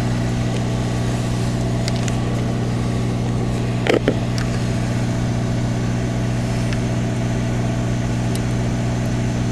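Steady electrical hum, a stack of even tones that stays level throughout, with a short clicking knock about four seconds in, as a radio's speaker jack contact is handled.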